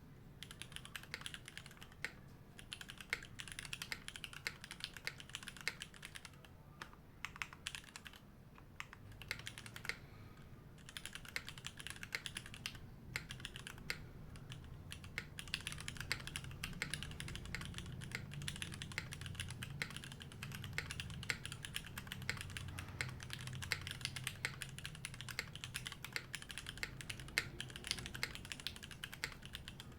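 Typing on a Navi60 custom mechanical keyboard with Cherry Hyperglide Black switches, Staebies stabilizers and GMK keycaps: fast, steady key clacks, with a few short pauses in the first half.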